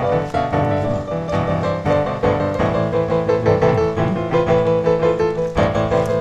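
Background music led by piano, with a steady run of notes.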